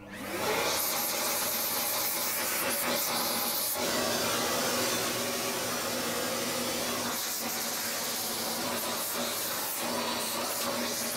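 A handheld electric dust cleaner switches on and runs steadily, a motor hum under the rush of air through its nozzle, as it clears dust from a laptop motherboard and its cooling fan.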